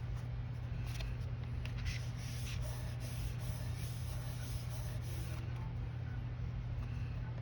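Several short, faint hissing spritzes of water from a small spray bottle onto inked cardstock, over a steady low electrical hum.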